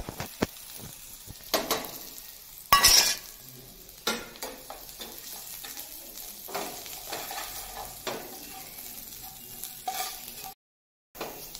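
Onions and ground spices frying in hot oil in a metal frying pan while a spatula scrapes and stirs them, with sharp clicks of metal on the pan and one short loud burst about three seconds in. The sound cuts out for a moment near the end.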